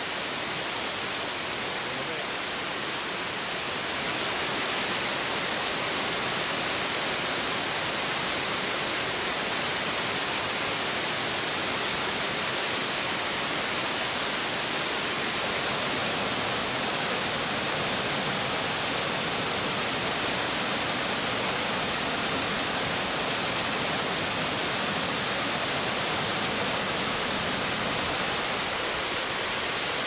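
Steady rush of a tall waterfall, about 70 metres high, falling into the forest below; it grows a little louder about four seconds in.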